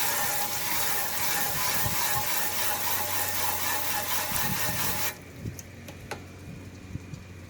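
Garden hose spraying water down into an air conditioner's condenser unit, a steady hiss that cuts off abruptly about five seconds in, followed by faint drips and ticks.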